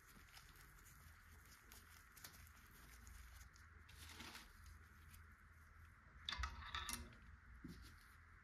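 Near silence with faint room hiss and scattered small clicks, then a short cluster of sharp clicks and rattles about six seconds in.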